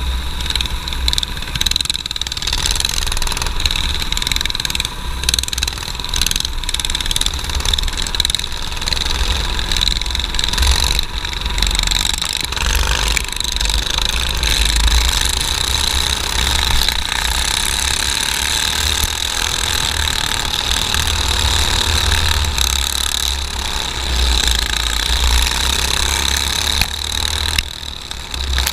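Dirt kart engines running hard at racing speed, heard from onboard a kart in a pack, with a steady high whine and a heavy, uneven wind rumble on the microphone.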